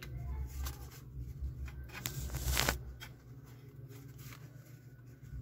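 A sheet of paper rustling and sliding as it is pushed under a receiver's power-supply board, with a louder rustle about two seconds in and small clicks from handling the board.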